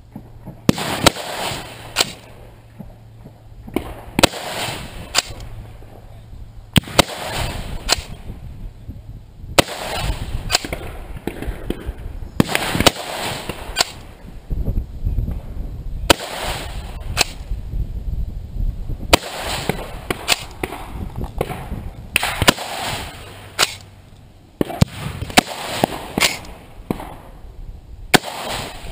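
Southern Gun Company gas-piston lever-release AR-15 in .223 firing single shots a few seconds apart. Each shot is a sharp crack followed by a short echo.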